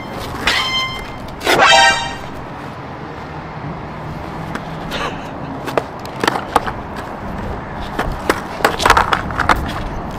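Skateboard on concrete: the board's wheels rolling and its deck and trucks clacking down several times, in a scatter around the middle and a quick cluster near the end. A loud horn-like toot sounds about a second and a half in.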